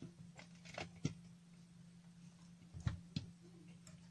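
Faint clicks and taps from test equipment being handled, about five in all, over a steady low hum.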